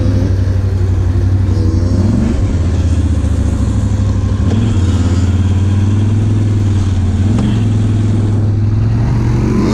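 ATV engine running steadily under the rider while driving along a sandy trail, its drone shifting in pitch a few times, about two, four and a half and seven seconds in.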